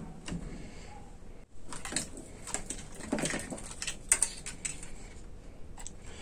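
Scattered light clicks and taps, as of small parts being handled on a workbench, over faint room noise.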